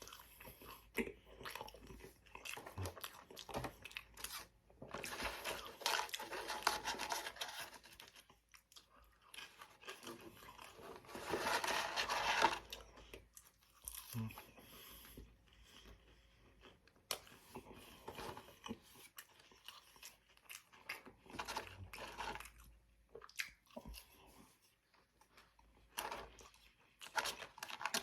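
A man chewing and crunching food close to the microphone, with wet mouth clicks between bites. Two longer, louder stretches of dense crunching come about five and eleven seconds in.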